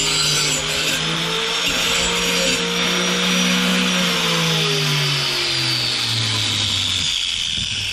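Electric grinder grinding a steel lawn mower blade's mulching edge, a steady motor tone with a high hiss; about halfway through it is switched off and its pitch falls steadily as the wheel spins down.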